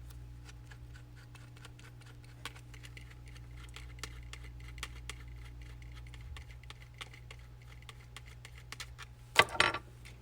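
Scattered light clicks and taps from hands handling small camera parts and packaging, over a steady low hum. Near the end comes one brief, louder clatter.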